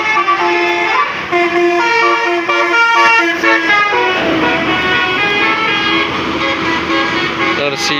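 Basuri musical bus horn playing a tune: loud horn notes stepping from one pitch to the next every fraction of a second.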